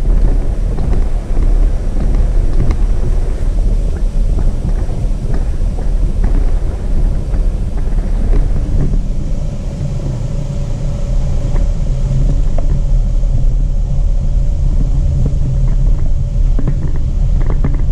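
Jeep Renegade 4x4 driving on a dirt road: a steady engine and road rumble, with scattered knocks from the rough surface that come more often near the end.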